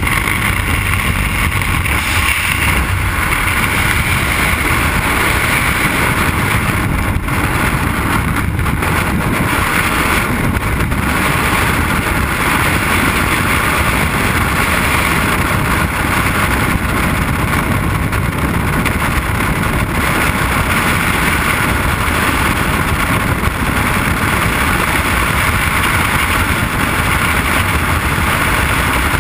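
Steady, loud wind noise of a skydiving freefall rushing over a helmet-mounted camera's microphone.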